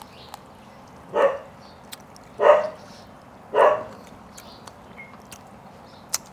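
A dog barking: three short barks about a second apart.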